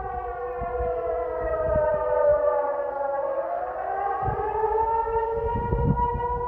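Civil defense warning siren sounding during a siren test. A steady multi-tone wail holds its pitch while one tone slides down and then rises again about halfway through.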